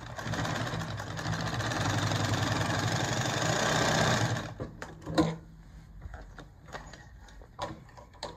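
Consew 289RB-2 post-bed walking-foot industrial sewing machine running steadily, stitching through several stacked layers of heavy leather, then stopping a little over four seconds in. A few light clicks and one sharp knock follow as the work is handled.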